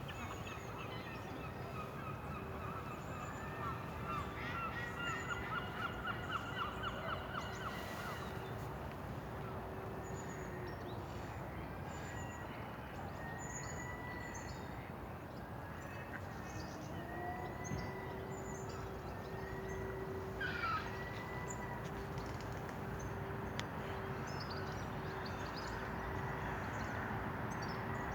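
Several birds calling and chirping, with a fast run of loud repeated calls about four to seven seconds in, over a steady low hum.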